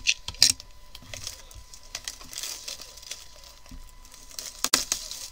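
A trading-card hobby box being opened by hand: wrapping and cardboard crinkle and tear, with sharp snaps about half a second in and again near the end.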